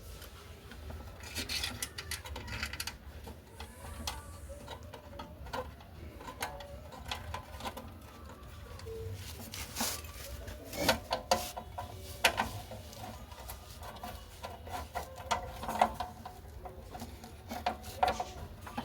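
Metal motorcycle parts and hand tools clicking, knocking and scraping at irregular intervals during chain work, with the sharpest knocks in the second half.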